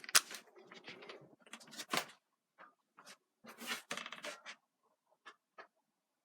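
Small clicks, taps and scrapes of a plastic toy blaster's battery compartment and batteries being handled. They come thick at first, then thin out to a few separate clicks near the end.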